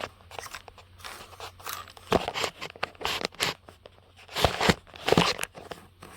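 Plastic headlight switch housing being pried and worked apart by hand: irregular clicks, crunches and scraping of plastic, loudest near the end.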